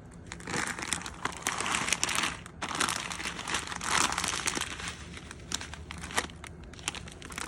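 Crinkling and rustling with many small clicks, in two stretches of about two seconds each, then fainter scattered clicks.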